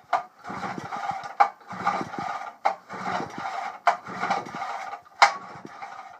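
Recoil pull-starter of a 5.5 hp Johnson Sea Horse outboard pulled about five times, roughly once a second, each pull a whirring rasp of rope and turning flywheel ending in a sharp click. The motor is being cranked over without starting for a compression test of its bottom cylinder.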